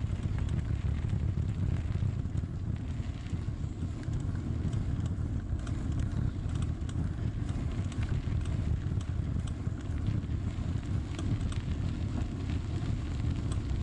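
Bicycle rolling along a gravel and dirt path: a steady low rumble of tyres and wind on the microphone, with scattered small clicks from the gravel and the bike.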